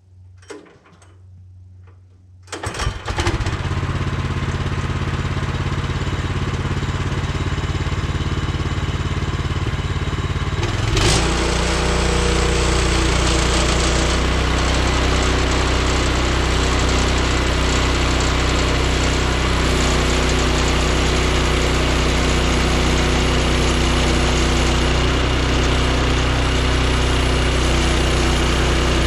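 Woodland Mills HM126 portable sawmill's gas engine starting about two and a half seconds in and running steadily. Around eleven seconds in it is throttled up to a fuller, louder running note for the cut. Before the start there are a few faint knocks.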